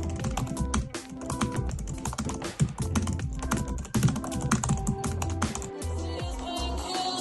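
Typing on a computer keyboard: a rapid run of key clicks that thins out near the end, over background music.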